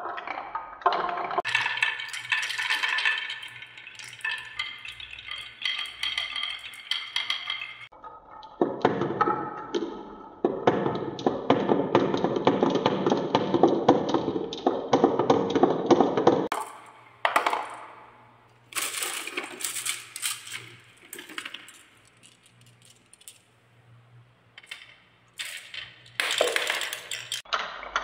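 Glass marbles rolling and clattering down a wooden marble run: quick clicks and clinks around a wooden spiral, then a dense rolling rumble with many clicks for several seconds along a wavy wooden track, then scattered sharp clicks near the end.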